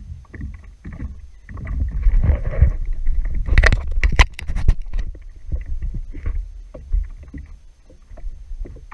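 Water sloshing and splashing around a Hobie Pro Angler fishing kayak, with low wind rumble on the microphone. A few sharp knocks come close together about three and a half to four and a half seconds in.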